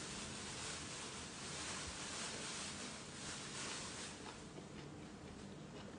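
A person chewing a mouthful of food with the mouth closed: soft, regular mouth noises, with a few small clicks near the end.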